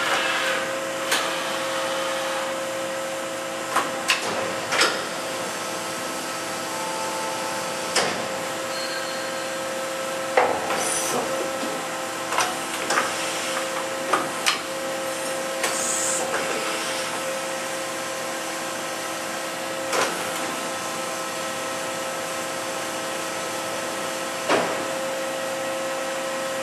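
Daewoo ACE-H100 horizontal machining center running with a steady hum, with a dozen or so short metallic clicks and knocks scattered through it.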